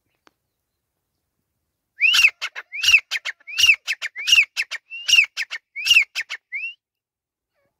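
Grey francolin calling: a loud series of six ringing notes, each rising and falling in pitch and trailed by a few short clipped notes, at a steady rhythm of about one every 0.7 s, starting about two seconds in and ending with a single rising note.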